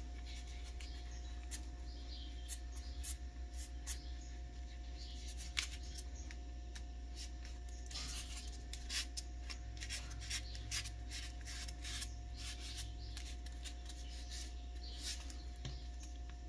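Hands handling and smoothing a piece of cold porcelain modelling clay, with scattered small clicks and soft rubbing over a steady low hum.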